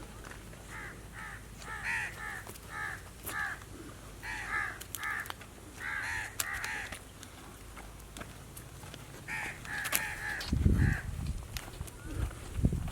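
Crows cawing, a run of short harsh caws repeated about one or two a second, pausing for a couple of seconds and then starting again. Loud low rumbling noise comes in near the end.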